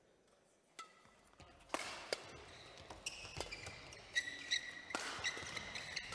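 Badminton doubles rally: sharp racket hits on the shuttlecock, the first about a second in, then more every second or so, with players' shoes squeaking on the court in between.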